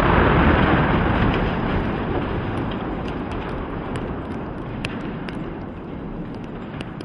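Rumbling crash of a highway bridge coming down after explosive demolition charges, fading steadily over several seconds, with scattered sharp cracks of debris in the second half.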